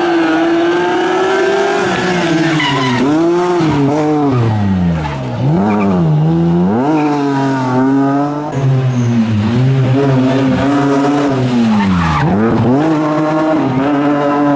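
BMW rally car engine at full effort on a stage, the revs climbing and falling with throttle and gear changes, dropping sharply about 5 seconds and 12 seconds in before pulling hard again.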